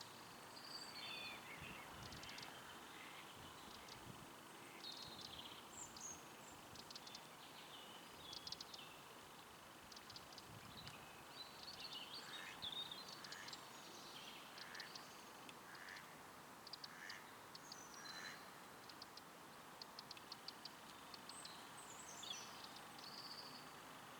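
Faint outdoor ambience with small birds chirping and twittering now and then over a steady background hiss.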